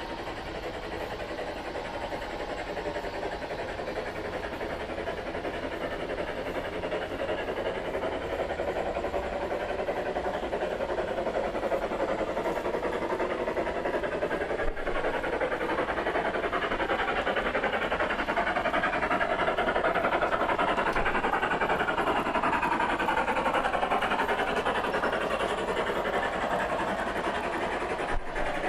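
A long train of large-scale model freight cars rolling along the track: a steady noise of wheels on rail that grows louder toward the middle and then eases off slightly.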